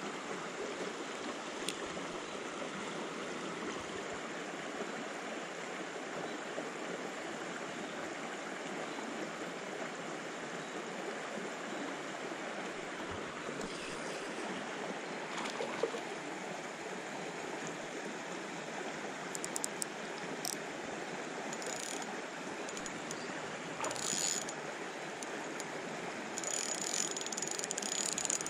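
Steady rush of a shallow creek running over rocks, with a spinning reel being cranked in short spells of clicking near the end.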